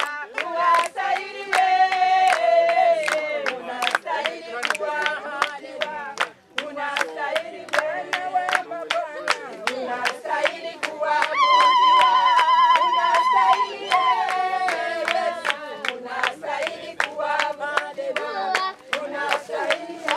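A group of people singing a worship song with hand clapping on a steady beat, about two claps a second. Midway a high voice holds one wavering note for about two seconds.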